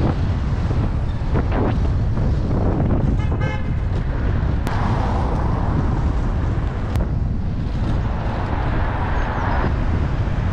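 Wind buffeting the microphone of a camera on a moving bicycle, over the rumble of city traffic. A brief horn-like toot sounds about three seconds in.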